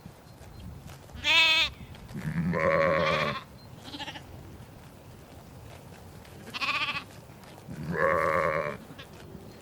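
Sheep in a flock bleating: four main bleats in two pairs, each pair a short, high quavering bleat followed by a longer, lower one, with a faint call between the pairs.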